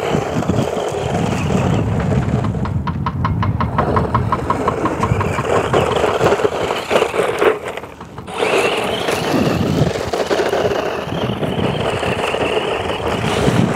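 Electric 4x4 off-road RC car driving fast over loose dirt and gravel: its motor running and its tyres scrabbling on the ground. A quick run of regular ticks comes a few seconds in.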